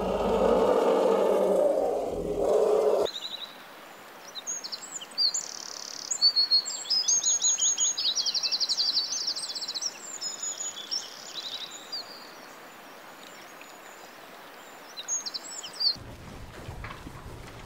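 An elephant's low call for about the first three seconds, then a hummingbird's high-pitched chirps and fast trills, on and off for most of the rest.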